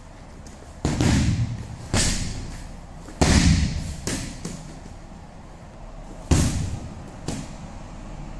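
Karate strikes slamming a padded kick shield into a stuffed grappling dummy, with the shield knocked off and falling onto the dummy and mat. There are four heavy thuds, about one, two, three and six seconds in, with lighter knocks between them.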